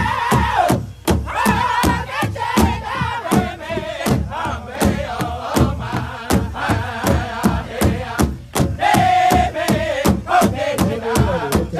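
Powwow drum group: several men strike a large hide powwow drum together in a steady beat, about three strikes a second, while singing a powwow song in unison. The singing breaks off briefly about a second in and again near eight and a half seconds.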